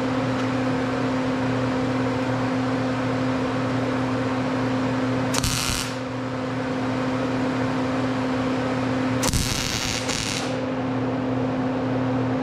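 Wire-feed (MIG) welder tack welding steel scrap: two short bursts of arc, the first about five seconds in and lasting half a second, the second about nine seconds in and lasting about a second. A steady electrical hum runs underneath.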